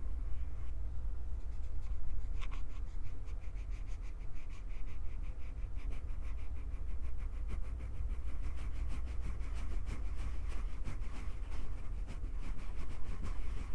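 Hands handling a Tascam recorder's microphones up close: a steady low rumble from gripping, with a quick run of light clicking, crackling contact noises, several a second, from about two seconds in until near the end.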